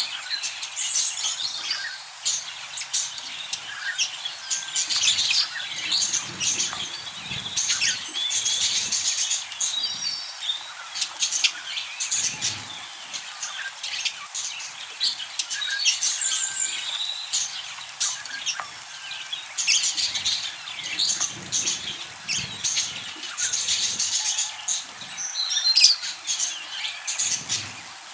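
Budgerigars chirping and chattering continuously, a dense run of short, sharp chirps and warbles.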